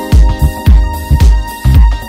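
Upbeat electronic dance music with a steady beat of low drum hits, about two a second.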